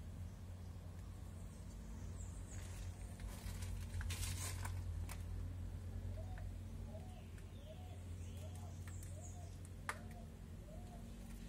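A bird calling a run of about eight short rising-and-falling notes, about one and a half a second, in the second half, over a steady low hum. A brief rustle comes before the calls, and a sharp click sounds near the end.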